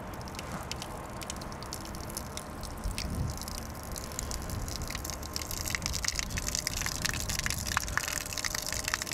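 Water gushing from a hose outlet and splashing onto pavement, the flow growing stronger about halfway through as the solar submersible pump's soft start brings it back up to speed after a restart.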